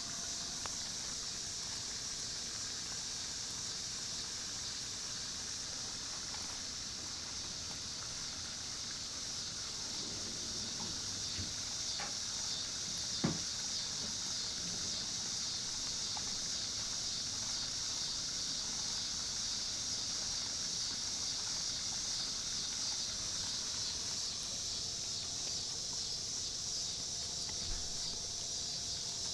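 A rough collie nibbling and crunching kernels off a corn cob held in a person's hands. A steady high hiss runs underneath, and there are a couple of sharp clicks about twelve and thirteen seconds in.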